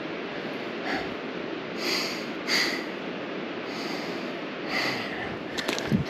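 A man breathing hard in several heavy breaths over a steady hiss, winded from climbing a steep hillside on foot; a few sharp clicks near the end.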